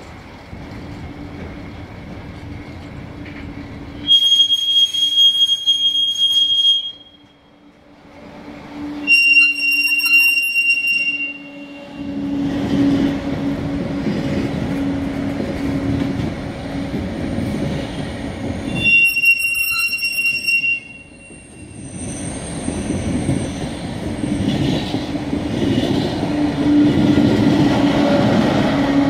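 Intermodal freight train of tank-container wagons rolling past, its wheels squealing in high, piercing tones three times for a couple of seconds each, over a steady rumble of wheels on rail. Near the end a passing TGV adds to the rolling noise.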